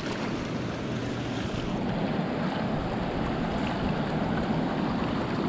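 Steady rush of fast-flowing river water below a dam, with wind buffeting the microphone.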